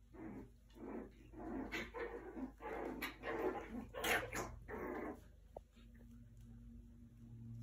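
Havanese dogs at play: a quick string of short barks and growls over about five seconds, the sharpest one about four seconds in.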